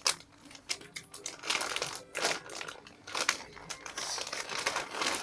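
Plastic packaging crinkling in irregular bursts as it is handled.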